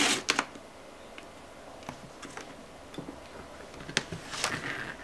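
A few light clicks and taps of sheet-metal LCD panel parts being handled, with a short scraping rustle near the end.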